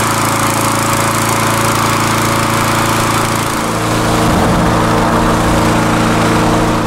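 Petrol-engine inflator fan running steadily, blowing cold air into a hot-air balloon envelope during inflation. Its engine note shifts to a slightly different pitch about three and a half seconds in.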